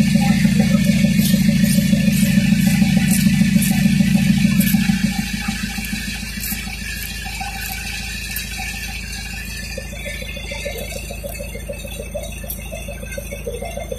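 Isuzu Elf's 4HF1 diesel engine idling steadily, kept running for the brake bleeding; it drops noticeably quieter about five seconds in.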